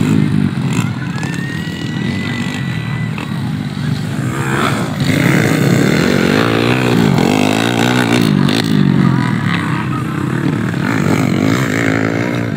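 Four-valve underbone motorcycle engines racing on a dirt trail course. The engines rev up and down repeatedly through the gears, rising and falling in pitch most strongly in the middle of the stretch.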